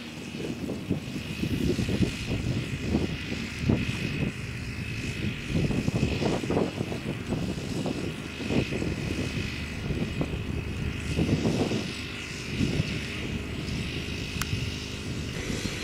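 Wind buffeting the microphone: an uneven low rumble that swells and drops every second or so, with a faint steady high tone above it.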